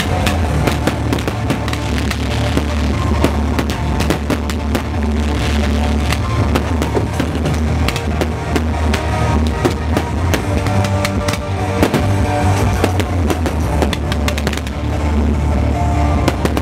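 Fireworks bursting and crackling in rapid succession over loud music with a heavy bass.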